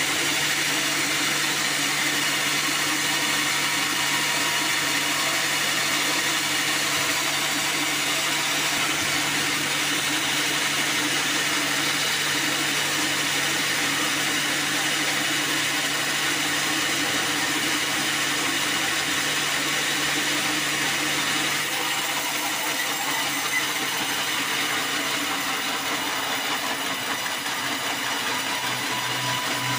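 Band sawmill running steadily, its blade sawing through a black acacia log, with a low motor hum that drops out about two-thirds of the way through.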